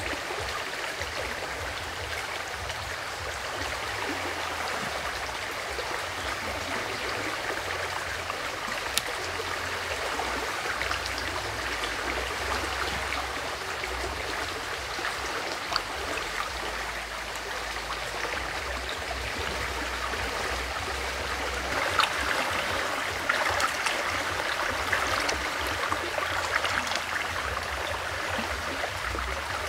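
Shallow river flowing: a steady rushing of water. A few sharp clicks stand out, more often in the second half.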